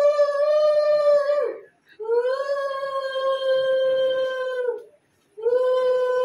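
Conch shell (shankha) blown in long, steady, single-pitch blasts. One blast ends early on, a full blast of about three seconds follows, and a third begins about five seconds in. Each blast sags slightly in pitch as it trails off. This is the ritual conch call of a Bengali puja.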